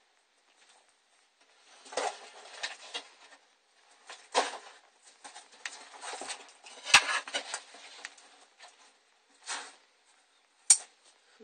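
Metal feeding tongs clicking while a savannah monitor scrabbles in loose soil substrate during tong feeding. It is a run of irregular rustling scrapes with a few sharp clicks, the sharpest about seven seconds in and another near the end.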